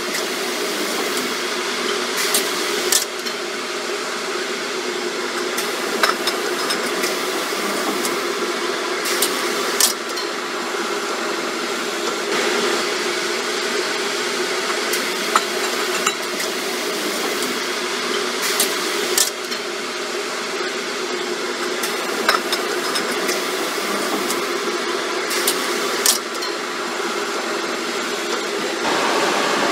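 Monoblock shrink-wrapping machine running with a steady mechanical hum. Sharp clacks, often two close together, come every three seconds or so as the film sealing bar cycles on each pack of jars.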